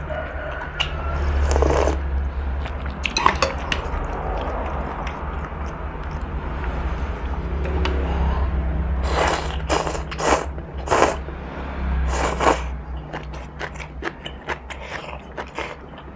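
Close-up eating sounds from a bowl of noodle soup: noodles slurped and chewed, with metal spoon and chopsticks clicking and scraping against a ceramic bowl. A run of several short, loud slurps comes a little past halfway.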